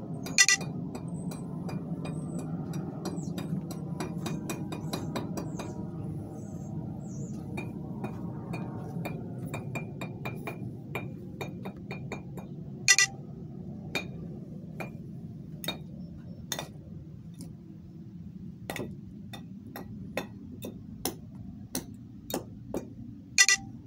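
A run of sharp, irregular clicks and clinks, three of them much louder (about half a second in, midway and near the end), over a steady low hum.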